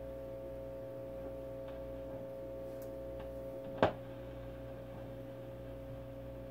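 1940 Zenith 10S464 ten-tube radio on reduced Variac voltage, giving a steady power-supply hum and faint static through its speaker while the dial is tuned. A few light clicks, and one sharp crack a little past halfway.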